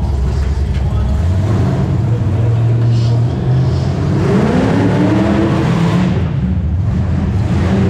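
Demolition derby car's engine running with a steady low rumble, revved up once around the middle and easing back down.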